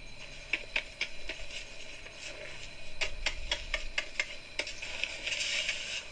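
Boots and tools crunching in shallow snow: a run of short crunches and clicks, coming quickly for a second or so midway, then a denser crunching near the end.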